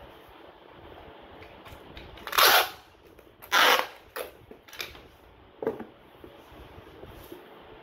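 Packing noises from a cardboard box and its foam padding being handled, with two loud, short scraping bursts about two and a half and three and a half seconds in, and a few softer knocks after.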